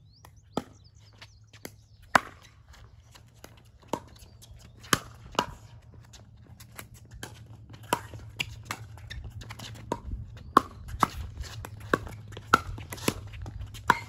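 A pickleball rally: sharp pops of paddles hitting the plastic ball and of the ball bouncing on the court, about a dozen in all, coming faster in the second half.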